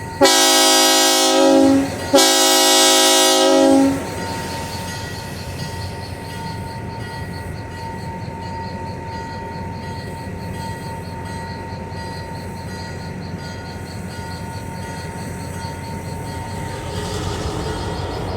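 Locomotive air horn sounding two long blasts, a chord of several tones, which is the railroad signal that the train is releasing its brakes and moving off. The horn gives way to the steady rumble of the train running.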